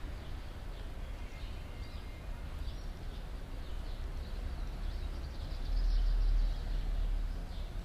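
Small birds chirping in short, scattered high notes over a steady low background rumble, which swells briefly about six seconds in.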